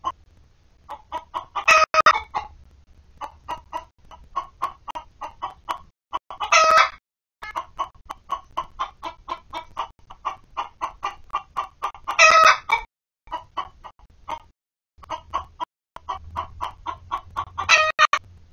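A hen clucking in runs of quick short clucks. Each run builds to a loud, drawn-out squawk, four times about five seconds apart. This is the pattern of the hen's egg song.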